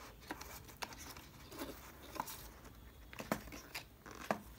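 Small cardboard retail box being handled and opened by hand: scattered light scrapes, taps and rustles of paperboard at irregular moments.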